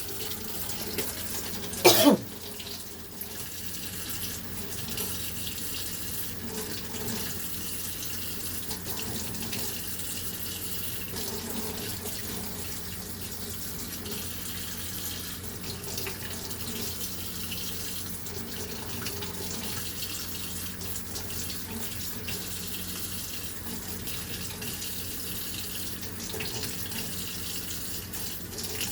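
Kitchen tap running steadily into the sink, with a brief loud cough about two seconds in.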